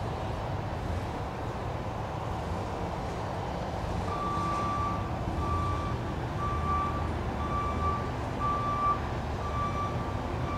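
A vehicle's reversing alarm beeping about once a second, starting about four seconds in, over a steady low rumble.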